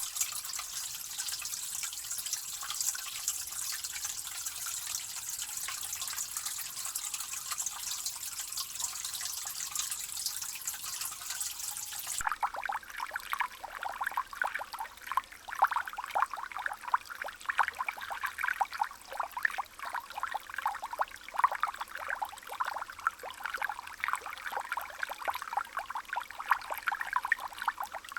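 Water sound effects: a steady hiss of running water, which cuts off abruptly about twelve seconds in and gives way to an irregular trickle of plinking drips.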